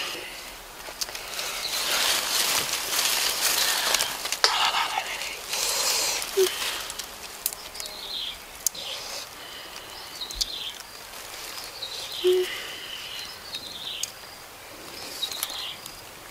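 Rustling in leaves and undergrowth, with several short, falling bird chirps in the second half.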